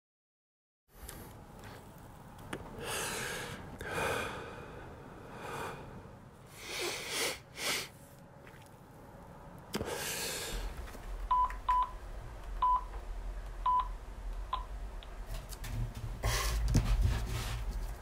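Mobile phone keypad beeping five times as a number is dialled: short single-pitch beeps spread over about three seconds. They come after several heavy breaths.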